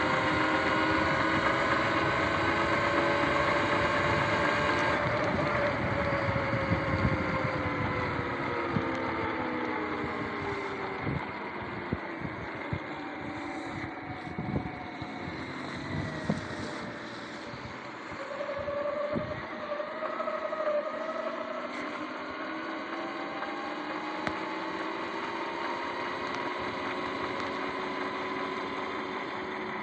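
Sur-Ron X electric dirt bike's electric motor and drivetrain whining under way, its pitch falling about halfway through and climbing again as it picks up speed, over wind noise and tyre hiss on wet pavement. Scattered knocks in the middle.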